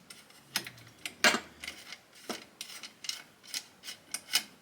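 Hand riv nut setter being unthreaded from a freshly set M8 riv nut: a string of light metallic clicks and clinks, the loudest about a second in.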